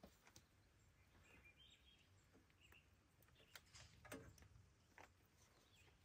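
Near silence: faint outdoor ambience with a few soft clicks and taps.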